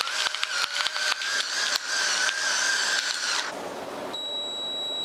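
Battery-powered electric pepper grinder whirring as it grinds pepper, a steady motor whine that stops about three and a half seconds in. Near the end a steady high beep sounds from the electric pressure cooker, signalling that its sous vide cycle is done.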